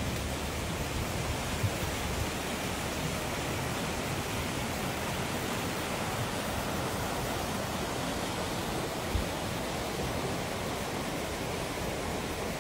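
Steady rushing of a burn-scar flash flood, a fast muddy flow of water and debris. Wind buffets the microphone in the first couple of seconds, and there is a brief thump about nine seconds in.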